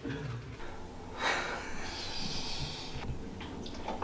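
A man breathing out hard through the nose, starting about a second in and lasting nearly two seconds.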